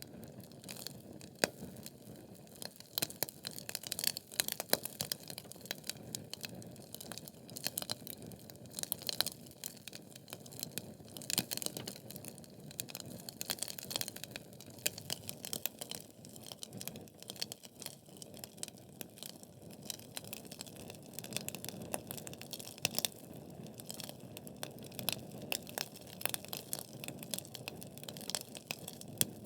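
Wood fire burning in a fireplace: logs crackling with irregular sharp pops over a steady low rush of flame.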